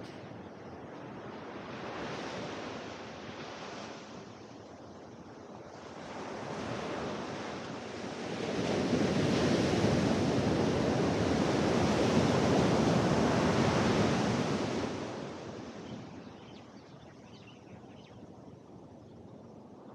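Ocean surf breaking on a sand beach. Two smaller waves wash in, then a bigger wave crashes and rushes up the shore from about eight seconds in, the loudest part, before it fades away.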